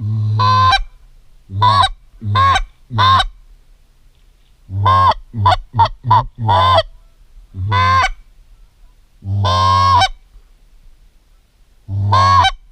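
Goose honking: about a dozen loud, short honks in irregular groups, each with an upward bend in pitch, and one longer honk near the middle.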